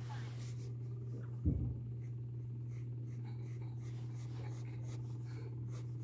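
Graphite pencil scratching across sketchbook paper in repeated short strokes, over a steady low hum. A single thump sounds about one and a half seconds in.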